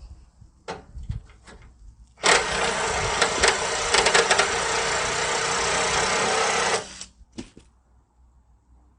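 Pneumatic wrench running for about four and a half seconds on a rusty radiator-support bolt, starting and stopping abruptly with a steady hiss and rattle, after a few light metal clicks as the socket goes on.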